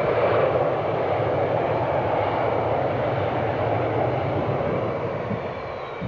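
Jet engines of the Buran atmospheric test vehicle running as it taxis: a steady, dense jet rush with a faint high turbine whine above it, easing a little near the end.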